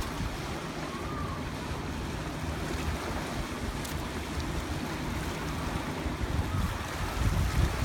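Wind rumbling on the phone's microphone over the steady wash of river water.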